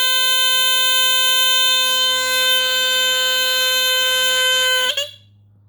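Radio Shack 275-451 smoke detector's battery-powered horn sounding one loud, continuous buzzing tone that cuts off suddenly about five seconds in. It is a false alarm: the detector goes straight into alarm as soon as its 9-volt battery is connected.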